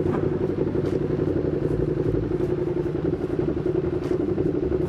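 Ducati Streetfighter V2's 955 cc L-twin engine with an Austin Racing exhaust, running steadily with the note holding constant and no revving.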